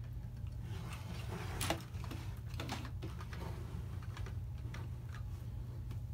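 Plastic LEGO train-car modules being handled and set down on a wooden table: a series of irregular clicks and knocks, the loudest about a second and a half in, over a steady low hum.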